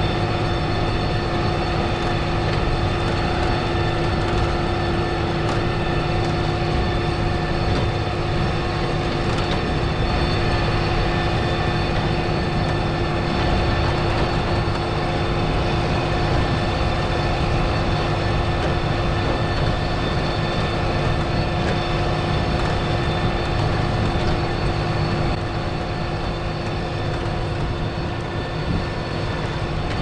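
A John Deere tractor running steadily under load while pulling a PTO-driven manure spreader, with a constant machine whine over the engine rumble.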